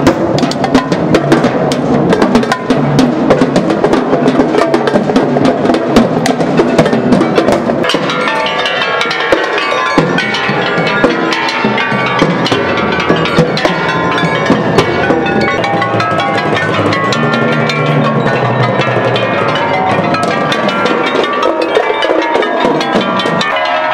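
Percussion ensemble playing live: fast, dense drumming on timpani and drums. About a third of the way in, ringing pitched notes from marimba-type mallet keyboards take the lead over lighter drumming.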